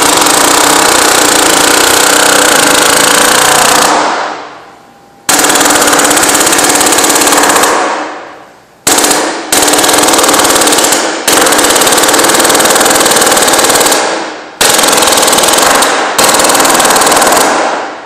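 Pneumatic air hammer running in rapid repeated strikes, driving the caulked edge of a filter cloth into the groove of a filter press chamber plate. It comes in bursts of one to four seconds with brief gaps, about seven in all, the longest near the start.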